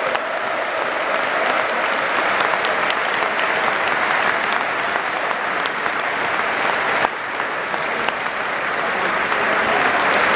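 Large football stadium crowd clapping and applauding: a steady, dense clatter of many hands, with one brief dip about seven seconds in.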